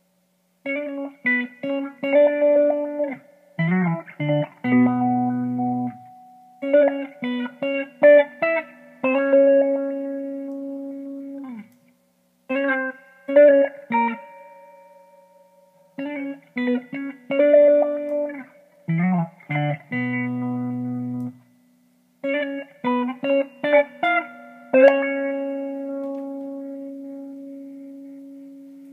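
Guitar played in short picked phrases separated by brief pauses, with notes ringing out. The last note sustains and fades slowly near the end. A faint steady hum sits underneath.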